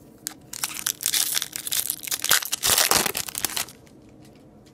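Foil wrapper of a hockey card pack being torn open and crinkled: a loud crackling rustle that stops short about three-quarters of the way through.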